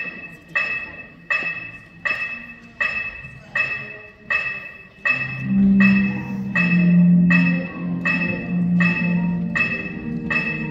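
Concert band music opening with a mallet percussion instrument striking one bell-like note over and over, about every three quarters of a second. About halfway through, low brass and woodwinds come in with sustained notes under it.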